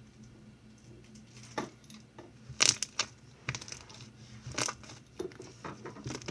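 Homemade slime being squeezed and poked for ASMR, giving a run of irregular sharp pops and clicks that start about a second and a half in, the loudest a little under three seconds in.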